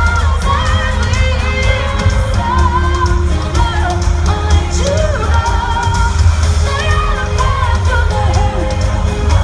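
Live pop music: a female lead singer's vocal over a loud, steady bass-heavy backing track.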